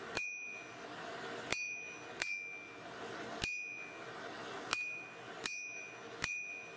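Hand hammer striking a red-hot coil-spring steel blade on an anvil: seven sharp blows about a second apart, each with a short high ring from the hammer and anvil, over a steady rushing noise.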